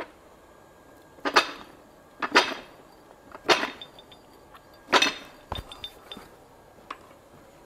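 Fly press driving a hexagon punch into a red-hot steel bar: four sharp metal strikes about a second apart, each with a short ring, followed by a few lighter clinks.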